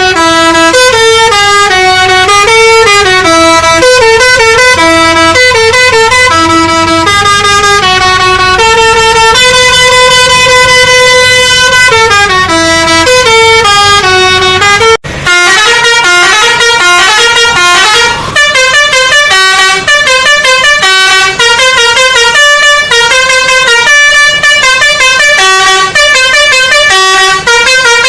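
A telolet basuri musical horn playing a tune in stepping notes, loud and unbroken apart from a short gap about fifteen seconds in, after which the notes come in quicker runs.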